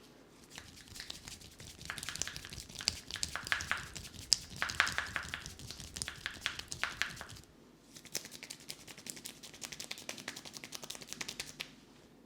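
Hands working over a person's head and hair in a head massage: quick rustling and crackling taps in two runs, with a short break a little past halfway.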